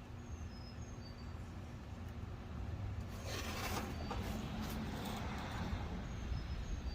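Masking tape being pulled off the roll and laid down, with one rasping pull about three seconds in and a few lighter scratchy strokes and clicks after it. A steady low rumble sits underneath.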